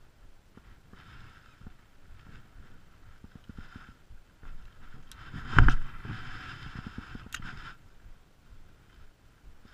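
Water splashing and sloshing in repeated short bursts, with one loud thump a little past halfway.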